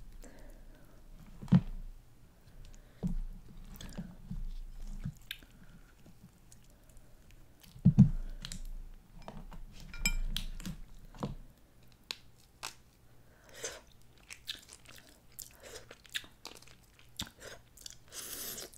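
Snow crab leg shells cracked and picked apart by hand: scattered sharp cracks and crunches, the loudest about eight seconds in, with some chewing.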